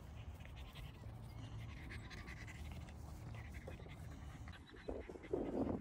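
French bulldog puppy panting, over a steady low wind rumble on the microphone, with a louder breathy burst near the end.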